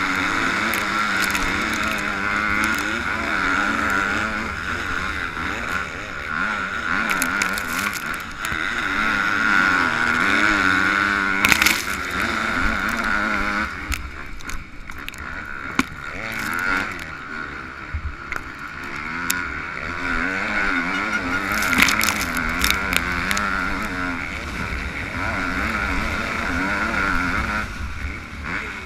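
Yamaha YZ250F four-stroke single-cylinder motocross engine racing, its revs climbing and dropping again and again through the gears. Wind rushes steadily over it, with sharp knocks twice, about a third and three quarters of the way through.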